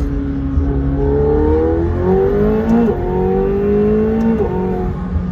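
McLaren 720S twin-turbo V8 pulling hard under acceleration, heard from inside the cabin. The engine note climbs steadily and drops sharply twice, about three and four and a half seconds in, as the dual-clutch gearbox snaps through upshifts.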